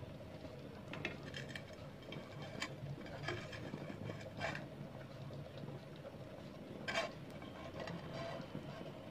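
A spatula clicking and scraping against a frying pan while grated coconut is pressed by hand, a handful of light knocks, the loudest about seven seconds in, over a steady low hum.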